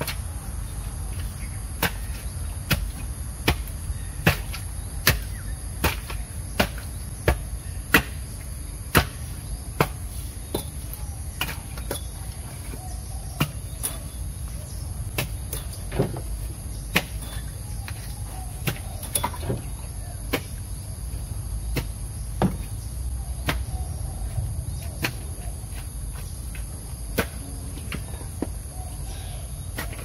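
A long-handled digging tool striking earth in a ditch, sharp knocks about one every three-quarters of a second for the first ten seconds, then more sparse. A steady high drone of crickets goes on throughout.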